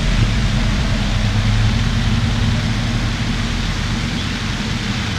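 Steady low mechanical drone with a broad hiss over it, unchanging throughout.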